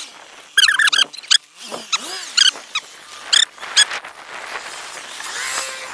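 Dog yelping: three quick runs of short, high yelps.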